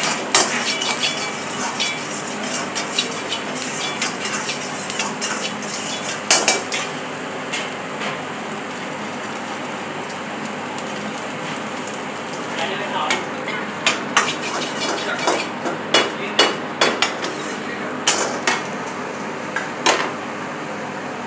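Steel ladle scraping and knocking against a wok during stir-frying, over a steady sizzle of food frying in hot oil. The knocks come quicker and louder in the second half as fried chicken pieces are tossed in the pan.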